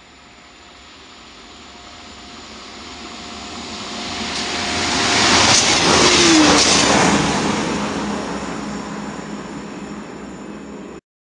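SNCF X72500 diesel multiple unit passing at speed. It swells steadily to a loud rush at the moment it goes by, about six seconds in, with a drop in pitch as it passes. Then it fades away and cuts off abruptly near the end.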